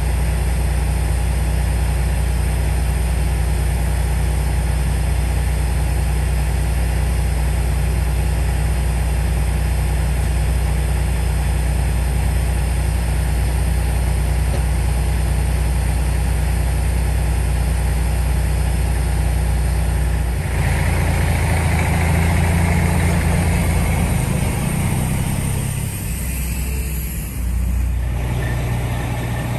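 Large diesel truck engine idling steadily. About twenty seconds in, the low running note shifts and a rushing hiss comes in over it for several seconds.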